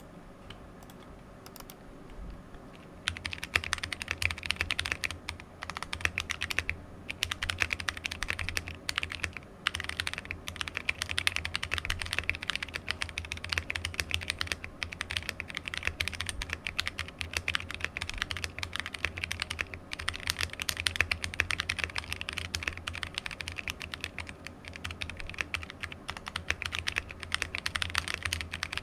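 Steady typing on a mechanical keyboard fitted with AEBoards Naevy tactile switches in a plateless BM60 Poker build: a fast stream of key clacks as the long-pole stems bottom out on the housing. It starts about three seconds in and has a few brief pauses.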